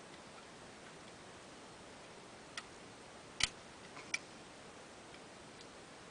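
A few sharp metallic clicks, four or so in the second half, the loudest about three and a half seconds in, from a homemade welding-rod pick and rod tension wrench working inside a rusty two-lever lever lock while trying to catch the lever.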